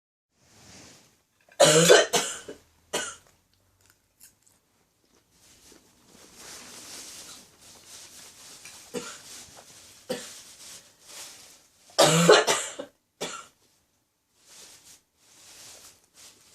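A woman with a lingering cough coughing in two fits: a quick run of coughs about two seconds in and another about twelve seconds in, each followed by one smaller cough, with fainter breathy sounds between the fits.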